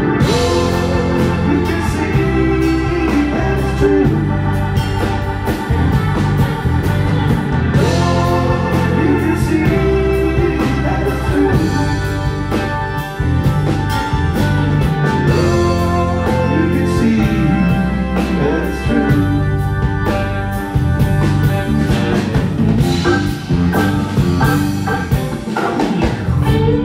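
Live band music, with organ to the fore over electric guitar, electric bass and drums.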